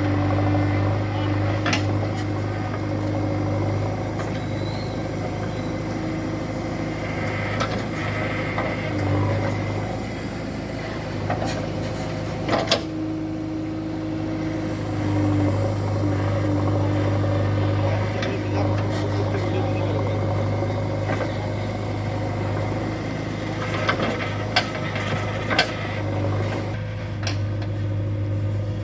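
Heavy diesel engine running steadily under varying load, with a few sharp metallic knocks about halfway through and a cluster of them near the end.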